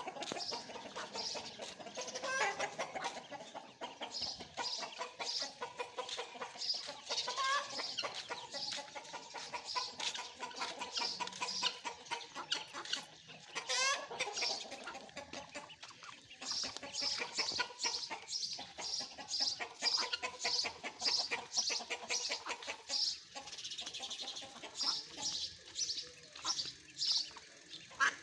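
Ducklings peeping, short high peeps repeated about two a second, with lower calls from adult fowl mixed in.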